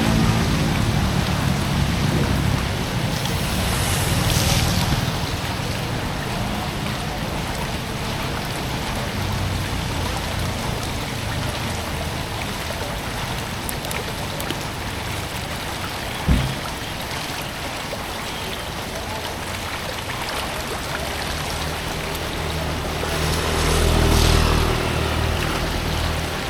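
Steady rush of flowing water, with a low engine-like rumble underneath that swells and fades. A single dull knock about two-thirds of the way through.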